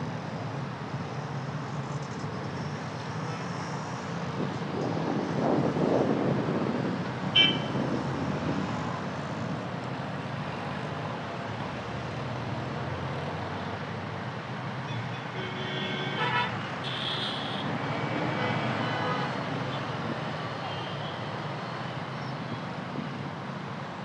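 Steady low rumble of outdoor traffic, with a vehicle passing about five to seven seconds in. Short horn toots come at about seven seconds and again around sixteen seconds.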